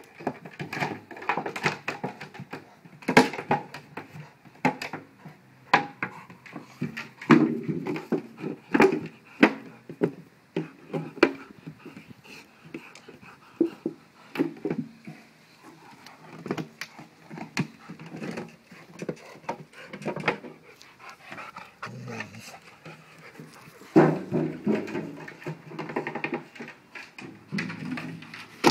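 Rottweiler panting while it bites and shoves a 5-gallon plastic water bottle, with irregular sharp knocks and clatters from the plastic.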